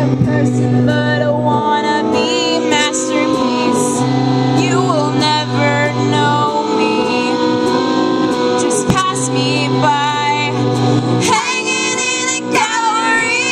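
Live indie-pop music: women singing over electric guitar and a small electronic keyboard, the keyboard holding long low notes that change every couple of seconds.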